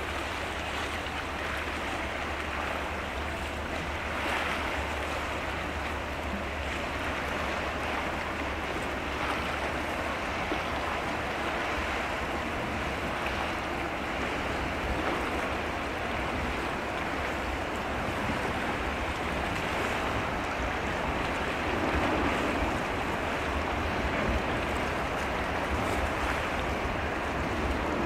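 Steady rush of sea water washing in the strait, with a low rumble underneath; it swells slightly a few times.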